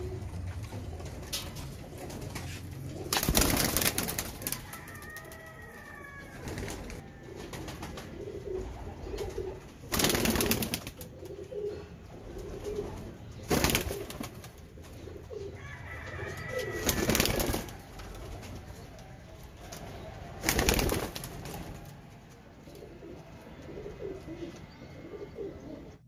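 Domestic fancy pigeons cooing, a low repeated burbling that goes on throughout, with five loud, brief rushing bursts a few seconds apart.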